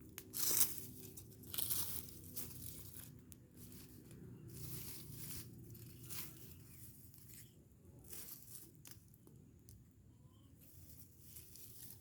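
A rubbish fire of household trash burning, with irregular crackling, crunching and rustling as the pile burns; the sharpest crack comes about half a second in.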